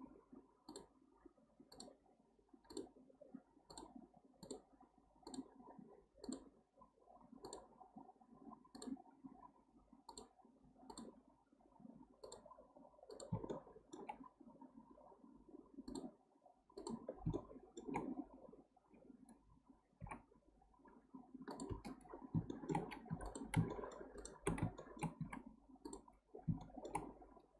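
Computer mouse clicking at about two clicks a second, with a few short pauses, over a faint irregular background noise.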